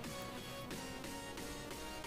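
Soft background music with a steady, even pulse of notes.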